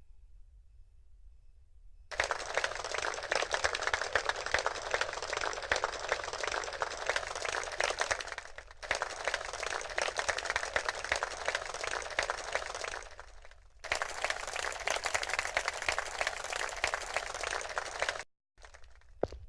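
A dense crackling noise effect from the Casio CT-X9000 keyboard's built-in sound effects. It is sounded as three long held stretches of several seconds each, with short breaks between them, and a few sharp clicks come near the end.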